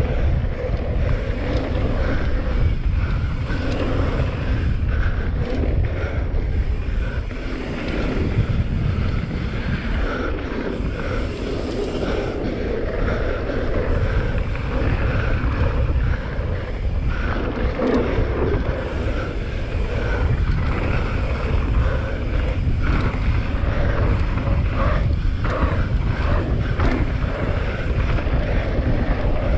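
Wind rushing over a helmet or chest camera's microphone as a mountain bike rides fast downhill, with tyres running on dirt and the bike clattering over bumps. The rush is steady and loud throughout, with scattered short knocks.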